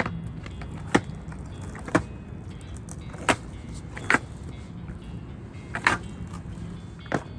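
Skateboard on Mini Logo trucks and wheels rolling over pavement: a steady low rumble broken by about six sharp clacks at uneven intervals.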